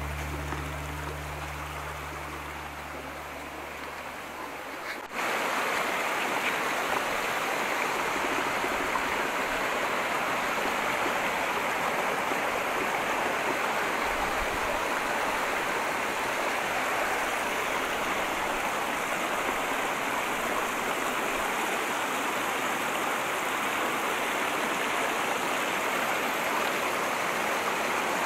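Small forest brook rushing steadily over rocks and little cascades, starting abruptly about five seconds in. Before that, the tail of background music fades out.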